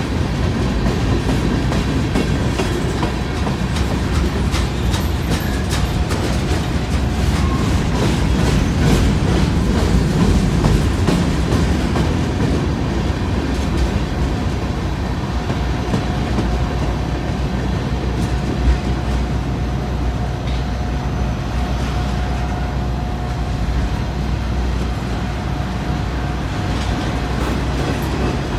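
BNSF manifest freight train's covered hoppers and tank cars rolling past: a steady low rumble with wheels clicking over rail joints, the clicks thickest in the first half.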